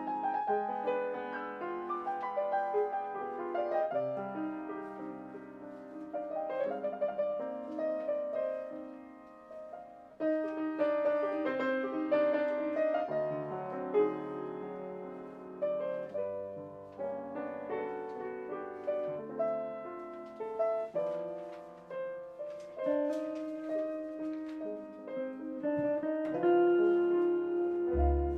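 Grand piano playing a slow jazz ballad in chords and melody, one phrase dying away about ten seconds in before the next begins.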